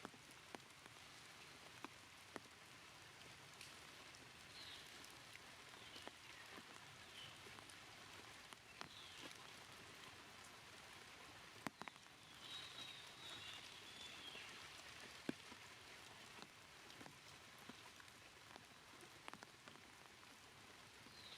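Faint light rain pattering, with scattered sharp drips and ticks. A few short, wavering high-pitched calls come now and then.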